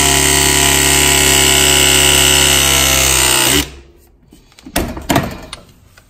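Powered press tool's motor running steadily as its jaw crimps a press fitting onto multilayer (MLCP) pipe, cutting off about three and a half seconds in. A few short clicks and knocks follow as the jaw is opened and taken off the fitting.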